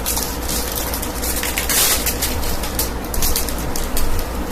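Collector booster packs and Magic: The Gathering cards being handled, rustling in short repeated bursts, the loudest about two seconds in, over a steady low hum.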